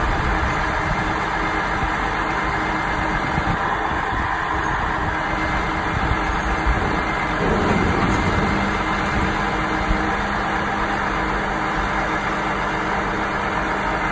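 Volvo 8x4 grab tipper's diesel engine running steadily to drive the hydraulic loading crane. About halfway through its pitch rises and then holds higher as the crane lifts the loaded grab out of the soil heap.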